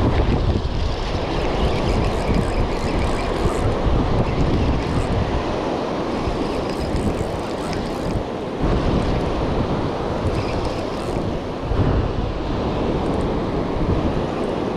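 Wind buffeting the microphone over the wash of surf breaking on the beach, a continuous rumbling noise that swells and dips, briefly easing about two-thirds of the way in.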